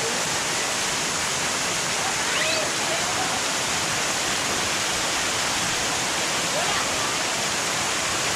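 Waterfall pouring over a rock face, a steady rush of falling water.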